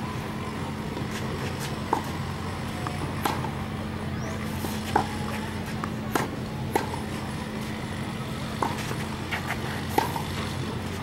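Tennis ball struck by rackets in a baseline rally on a clay court: a sharp pop every one to two seconds, about eight in all, over a steady low hum.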